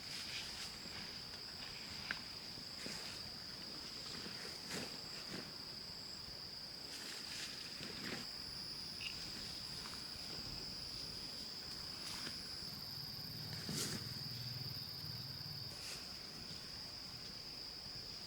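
Insects in the forest giving a steady high-pitched drone on one unbroken tone, with scattered sharp clicks and knocks over it.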